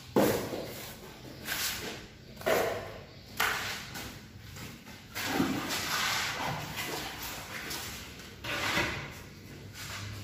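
Hand tool scraping and spreading a semi-dry sand-and-cement mortar bed on a floor, an irregular series of scrapes about one every second or two.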